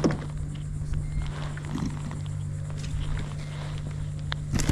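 Faint knocks and handling noises over a steady low hum, then a sudden loud burst of commotion near the end, likely a splash with gear going into the water.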